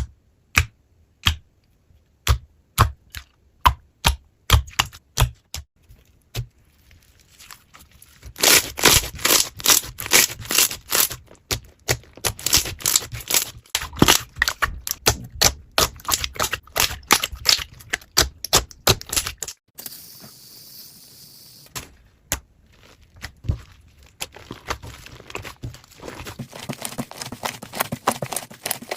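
Slime being pressed and worked by hand, making sharp clicks and pops, a few a second at first, then dense crackling for about ten seconds, then sparser clicks again.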